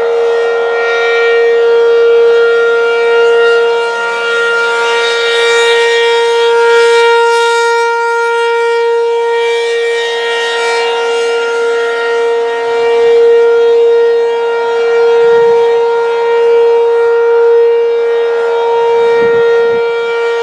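ACA P-15 outdoor warning siren sounding a steady tone at full speed, its loudness slowly swelling and fading, during a full test for a tornado drill.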